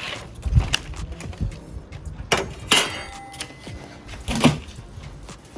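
Handling of a steel circular saw blade and its packaging: a few separate knocks and clicks, one about three seconds in followed by a brief metallic ring.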